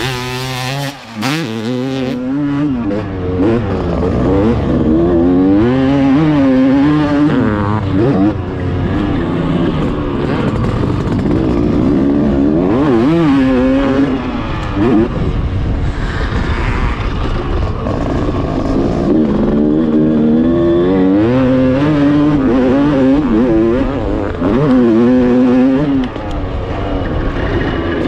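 Motocross bike engine at racing speed, heard onboard, rising in pitch and falling back again and again as the rider accelerates, changes gear and rolls off around the track.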